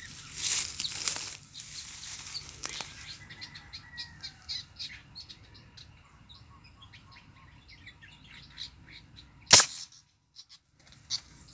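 Small birds chirping in the trees after a brief rustle, then a single sharp air rifle shot about nine and a half seconds in, the loudest sound.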